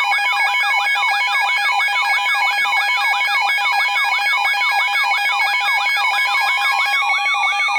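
Radio emergency alert attention tone: a steady electronic tone with a rapidly repeating falling warble over it, played ahead of a National Weather Service tornado warning.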